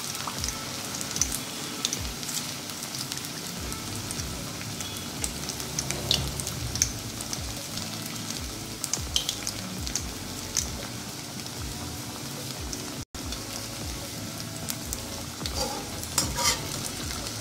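Pigeon-pea (toor dana) patties deep-frying in hot oil in an aluminium kadhai: a steady sizzle with frequent crackling pops. Near the end a slotted metal spatula goes in and scrapes the pan a few times.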